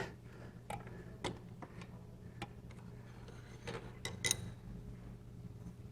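Faint, scattered metal clicks and light clinks of hand tools and valvetrain parts being handled as the rocker arm and its shaft wedge are worked loose on an air-cooled Porsche 912 cylinder head, over a low steady hum.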